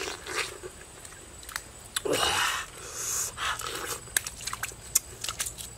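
Fresh pineapple being bitten and chewed: a few juicy, crunching bites and sharp clicks between stretches of quieter chewing.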